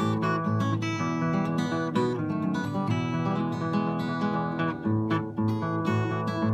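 Steel-string acoustic guitar played fingerstyle: a steady, repeating bass line under plucked melody notes.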